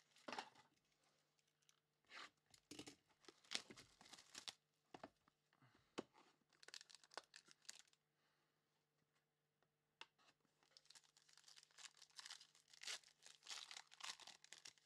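Faint, scattered tearing and crinkling of the plastic and foil wrap on a Panini trading-card box as it is opened by hand. The rustling stops for a few seconds midway, then starts again after a single click.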